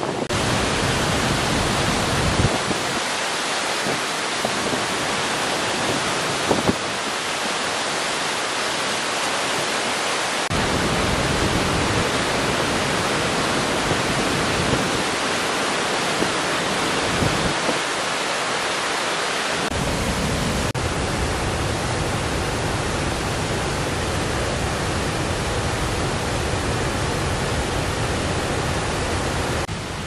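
Steady, loud rushing of a large waterfall in heavy flow. A deep low rumble underneath cuts out and returns abruptly a few times.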